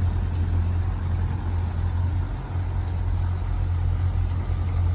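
A tour pontoon boat's outboard motor running steadily at low speed, a constant low drone with water washing beneath it.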